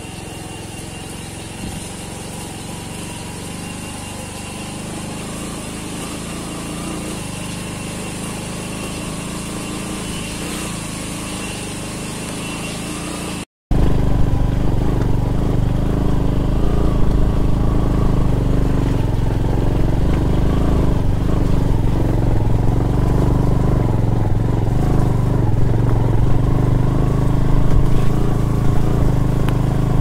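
Bajaj Platina 100 cc motorcycle's single-cylinder engine running while riding a rough dirt track. The sound is quieter for the first half; it drops out for an instant about halfway through and is much louder after that.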